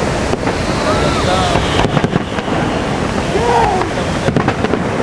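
Fireworks going off in several sharp bangs over a steady rush of falling water and wind on the microphone, with a few voices exclaiming.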